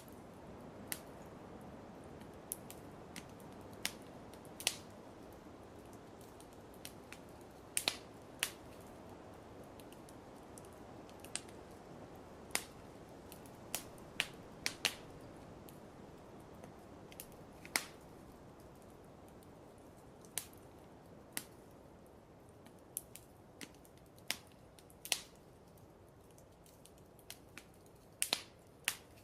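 Wood fire in a fireplace crackling: sharp pops at irregular intervals, roughly one a second, over a soft steady hiss.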